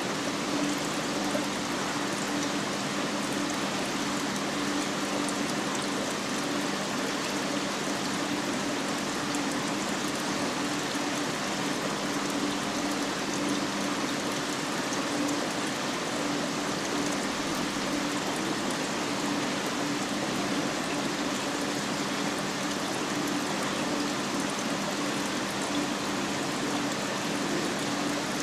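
Steady rushing water noise with a low steady hum from a marine aquarium's circulation pumps and water flow.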